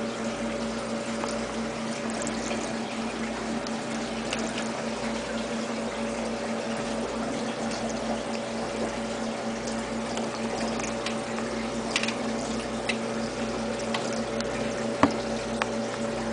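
Small water pump or filter running: a steady trickle of water over a steady electric hum, with a few faint ticks and one sharper tick near the end.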